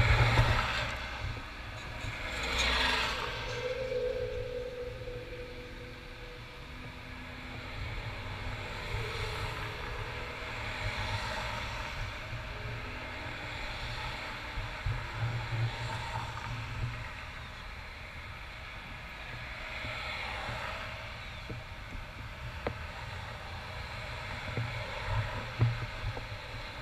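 Road traffic crossing an intersection: a box truck and cars driving past one after another, each rising and fading, over a low steady rumble. The loudest pass is about two to three seconds in.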